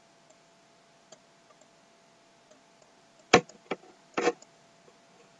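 Computer mouse clicking a few times, sharp short clicks about three to four seconds in, over a faint steady hum.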